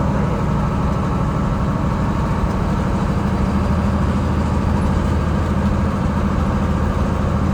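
GMC cab-over truck's engine running steadily with an even low hum.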